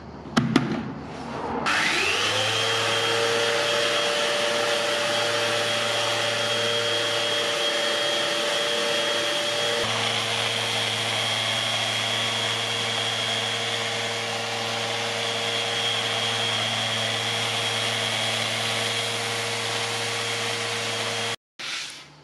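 A few clicks as a sanding disc is pressed onto the pad, then a Festool Rotex random-orbital sander spins up and runs steadily, sanding an oak stair tread. The sound stops abruptly near the end.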